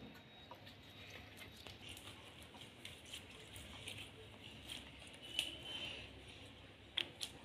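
Sticky slime being stretched and pulled between the hands, giving faint crackling and squishing with a few louder sticky snaps about five and a half and seven seconds in.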